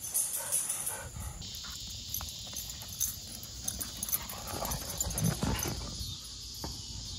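A bullmastiff and a pit bull mix play-wrestling: scuffling and thumps mixed with short dog vocal sounds, with one louder burst a little past the middle.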